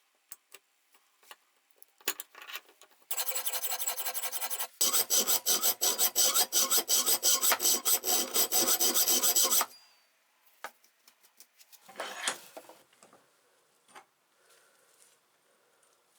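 Steel being rasped by hand with a file or hacksaw, cutting fresh grip grooves into a worn bench-vise jaw. A short even rasp about three seconds in is followed, after a brief break, by about five seconds of louder, rapid back-and-forth strokes at roughly five or six a second. After that come scattered light clicks and one short scrape.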